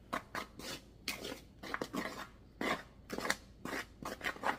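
Small whisk scraping through a bowl of dry seasoned flour dredge, ticking against the sides of a plastic bowl in quick, irregular strokes, about two or three a second.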